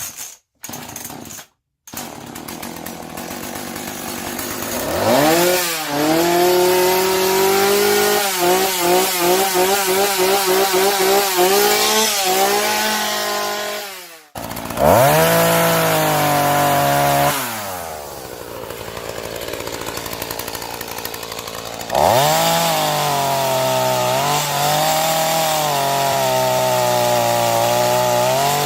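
Homelite two-stroke chainsaw engine running on a newly fitted carburetor: it revs up, is blipped in quick bursts about three a second, drops back toward idle, then revs up again and holds high, with a couple of abrupt cuts.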